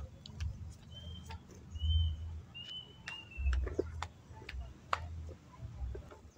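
Outdoor ambience: low gusty rumbling on the microphone, scattered faint clicks, and a few short high chirps, like a small bird calling, about one to three seconds in.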